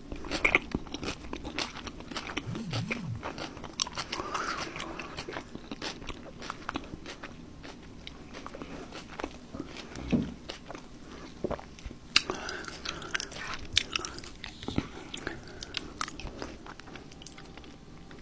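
A person chewing KFC Double Down fried chicken close to the microphone, with many irregular sharp clicks from the mouth throughout.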